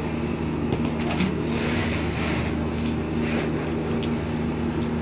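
Light metallic clinks and tool handling as a copper refrigerant pipe and its flare nut are worked on, over a steady low hum.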